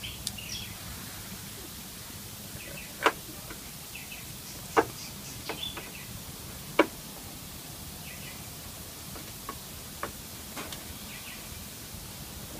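Sharp clicks and knocks of parts and tools being handled on a workbench during radio reassembly, three louder ones about two seconds apart in the middle and a few lighter ones scattered around them, over a steady background hiss.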